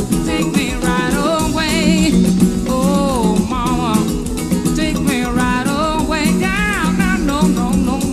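A man singing with strong vibrato and sliding runs, over acoustic guitar and a backing band with drums.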